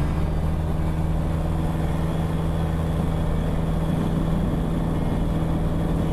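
Piper PA-28 Cadet's four-cylinder piston engine and propeller running at high power at a steady pitch, heard from inside the cockpit during the takeoff roll.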